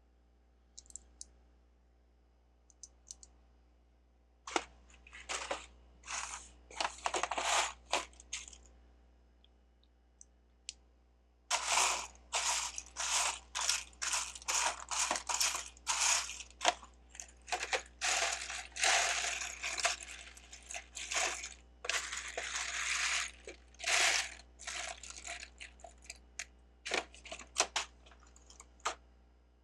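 Loose plastic Lego bricks clattering as hands rummage and sift through a pile of pieces, in clusters of quick clicks that start about four seconds in, pause briefly, then run on almost continuously.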